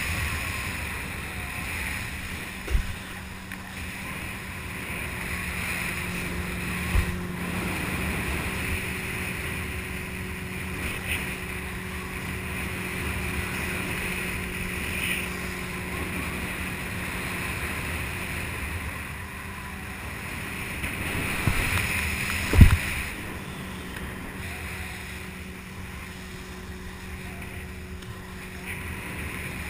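Wakeboard tow boat's engine running steadily over rushing water, with wind buffeting the microphone. A few short thumps, the loudest about three-quarters of the way through.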